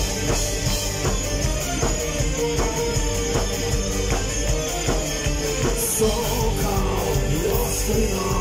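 Live power metal band playing an instrumental passage: steady drum kit beat, bass and electric guitar, with an electric violin playing the melody line over them.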